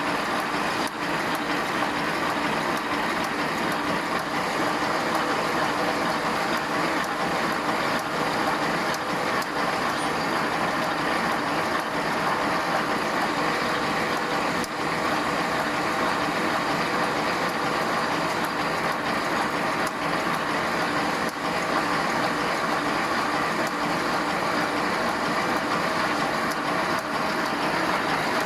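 Automatic wire-mesh welding machine running: a steady, even mechanical noise with a few faint clicks.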